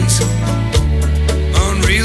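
A song with a singing voice over a strong bass line.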